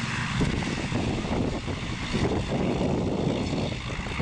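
ATR 72-200 turboprop freighter rolling out on the runway after touchdown: a steady engine and propeller drone as it passes close by, with an uneven low rumble of wind on the microphone.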